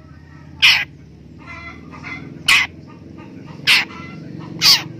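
Long-tailed shrike (pentet) giving four loud, harsh scolding calls about a second apart, an agitated response to a finger held at its cage.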